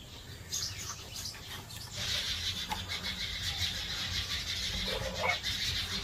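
Birds chirping steadily in rapid, high chatter that grows from about two seconds in, with a few light knife knocks and scrapes on a wooden cutting board as tomatoes are cut and pushed off into a bowl.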